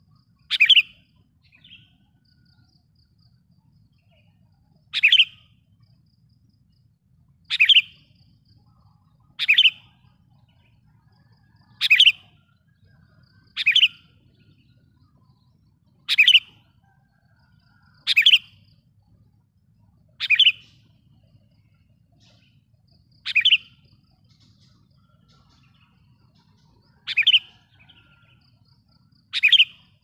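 Sooty-headed bulbul (kutilang) giving a loud, sharp call over and over, about a dozen short calls spaced roughly two seconds apart. This is the decoy call used to lure wild kutilang.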